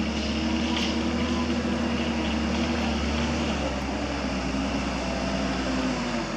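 A small motor running steadily with a low hum and a noisy whine, then cutting off suddenly right at the end.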